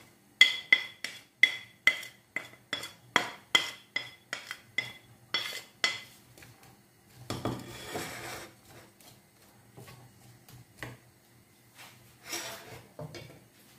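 A wooden spatula knocks repeatedly against a hard bowl, about three sharp ringing knocks a second for the first six seconds, as diced onion is scraped out into a frying pan. A softer clattering rustle follows about seven seconds in. After that there are only faint scattered kitchen sounds.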